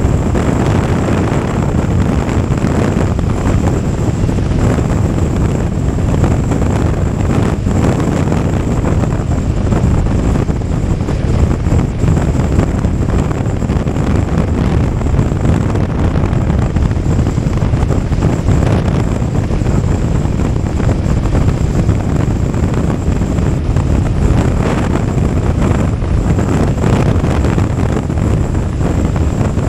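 Wind noise buffeting the microphone over a BMW F 850 GS motorcycle's parallel-twin engine, held steady while riding at speed.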